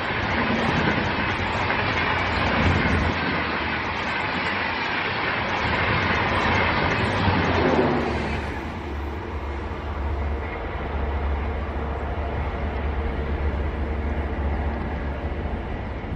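Indian passenger express train passing close at speed, with a dense rushing rumble of wheels on the rails. About eight seconds in this gives way to a quieter, steadier rumble with a deep hum.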